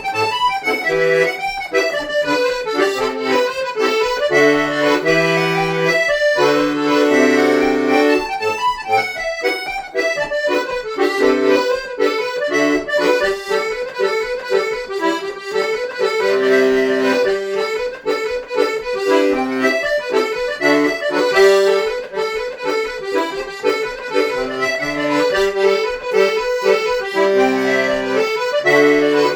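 Accordion playing a traditional Irish dance tune: a quick, unbroken run of melody notes over sustained bass notes.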